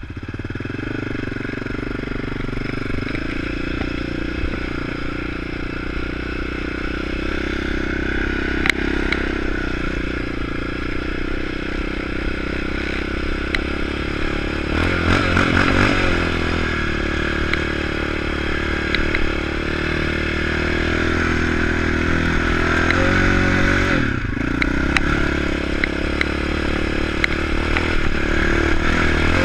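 Yamaha Raptor 700 ATV's single-cylinder four-stroke engine running as it is ridden over sand, the revs rising and falling with the throttle.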